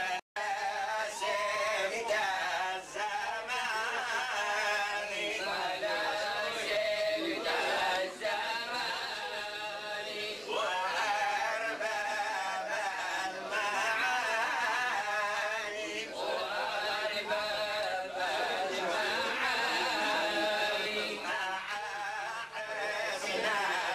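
Group of older men singing an Adeni Jewish song together, their voices rising and falling in a wavering melody. The sound cuts out for a moment just after the start.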